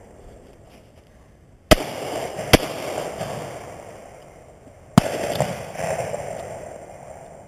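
Three shotgun shots: two under a second apart, then a third about two and a half seconds later, each followed by a long echo that fades away.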